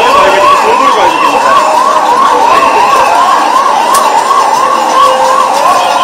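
Ambulance siren in a fast yelp, its pitch rising and falling about four times a second, over the noise of a large crowd.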